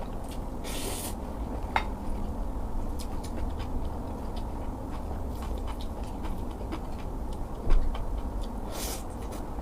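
Close-miked eating sounds: chewing with scattered small clicks and two brief rustles, and one louder knock about three-quarters of the way through.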